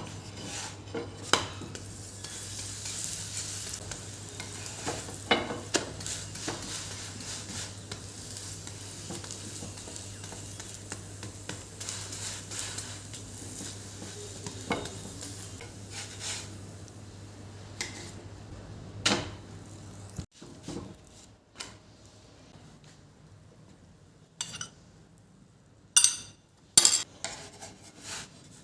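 Food sizzling in a hot pan while a utensil stirs it, with clinks of metal on the pan. About two-thirds of the way through the sizzle stops, and a few sharp knocks of kitchenware follow near the end.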